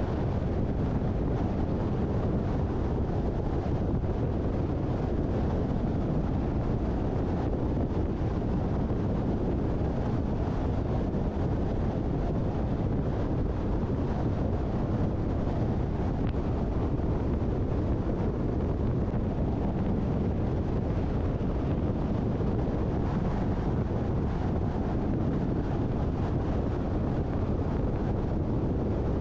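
Steady road and wind noise from a moving car: an even low rumble with a softer hiss above it, unchanging throughout.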